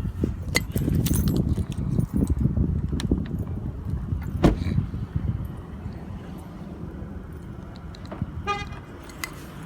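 Low rumbling with scattered knocks, like wind and handling on the microphone, loud for about the first five seconds and then easing. A short horn-like beep sounds about eight and a half seconds in.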